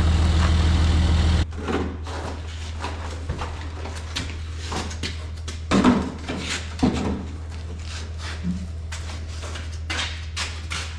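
Cummins diesel truck engine running steadily; it drops away suddenly about a second and a half in, leaving a quieter low hum with scattered clunks and knocks of metal being handled.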